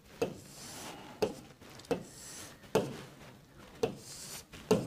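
Stylus tapping onto and stroking across the glass of an interactive touchscreen board while drawing lines: six short sharp taps about a second apart, with a soft scratchy rub between some of them.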